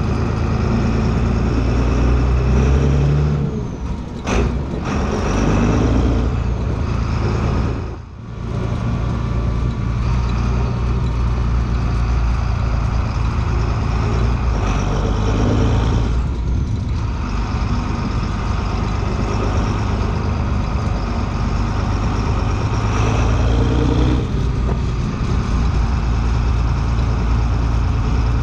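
Valtra 8550 tractor's six-cylinder turbo diesel engine running under throttle as the tractor drives. The engine note changes several times, with two brief drops in level about 4 and 8 seconds in.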